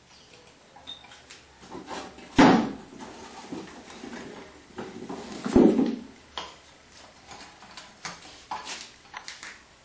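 Metal clunks and rattles from the lid and fittings on top of a homemade wood-gasifier burner's steel drum as they are handled. Two heavy knocks come about two and a half and five and a half seconds in, with lighter clicks between.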